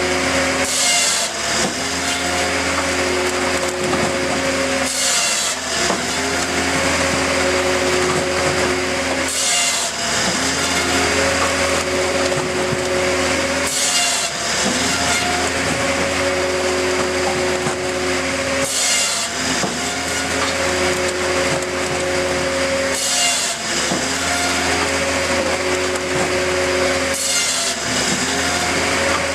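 A firewood processor running steadily, its saw and splitter working through logs. Its engine drone breaks briefly about every four to five seconds with each cycle, seven times in all.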